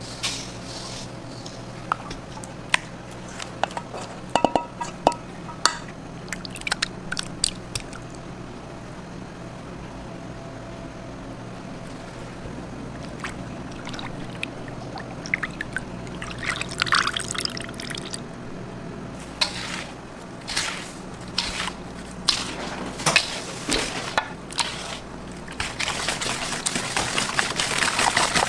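Milk pouring from cartons into a large stainless steel mixing bowl of eggs, with scattered clinks against the bowl early on and a steady low hum beneath. In the last few seconds the batter is whisked in the bowl, a busy scraping sound.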